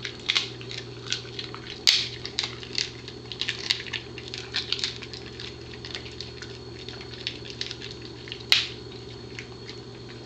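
A Pembroke Welsh Corgi chewing a crunchy dried buffalo trachea strip: irregular crisp crunches and clicks, thick in the first half and thinning to occasional ones later. There is a sharp louder crack about two seconds in and another near the end, over a faint steady hum.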